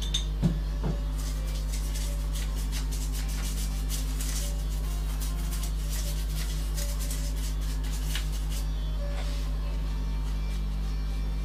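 Steady low electrical hum, with two short knocks about half a second in, then a few seconds of faint, fine scratching and tapping as small parts are handled on a carved wooden panel.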